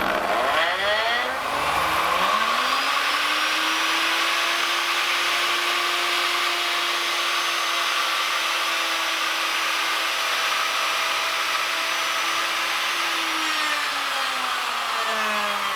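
Electric router with a carbide bit spinning up to speed over the first couple of seconds, running steadily, then winding down near the end, while it routes the top of a wooden anvil stump flat.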